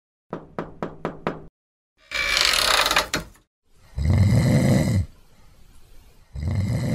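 Radio-drama sound effects: five quick knocks on a door, a short rush like a door being opened, then a man snoring loudly, two long snores.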